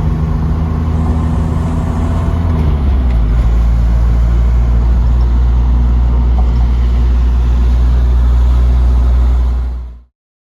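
A motor vehicle running, a loud steady low hum that drops lower about three seconds in, then cuts off shortly before the end.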